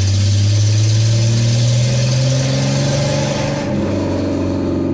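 A 1986 Ford F-250's 300 cubic-inch (4.9 L) inline-six pulls under acceleration, heard from inside the cab, its note rising steadily for about three and a half seconds, then dropping back slightly as the revs ease.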